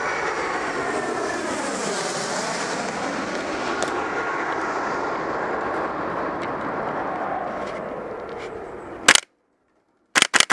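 A light aircraft's engine droning overhead, its pitch dipping and rising again, then fading. Near the end it cuts off at a sharp crack, followed by a quick burst of three sharp shots from a gas-blowback airsoft rifle.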